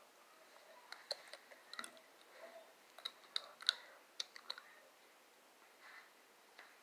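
A run of about a dozen short, sharp clicks at irregular intervals over a few seconds, over faint background hiss.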